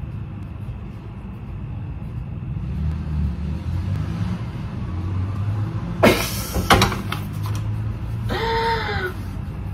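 A baking tray handled at an oven gives two sharp knocks about six seconds in, over a steady low hum. A short laugh comes near the end.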